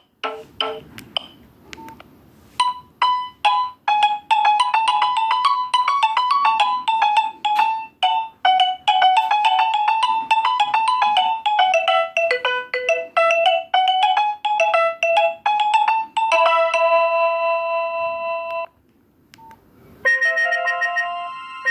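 Nokia 6131 polyphonic ringtone playing a quick melody of short synthesized notes and ending on a held chord. After a pause of about a second and a half, the next ringtone starts near the end.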